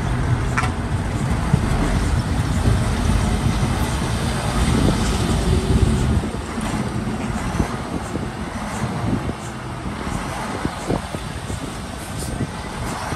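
Heavy diesel earthmoving machinery running at work, with a few sharp clanks; the sound eases somewhat about six seconds in.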